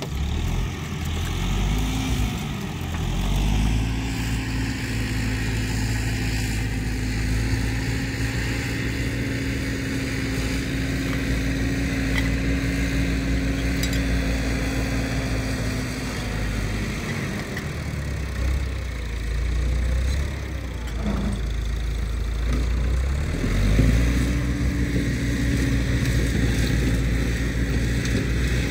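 Tractor engine running steadily at high revs, easing off to a lower speed for several seconds past the middle, then revving back up near the end.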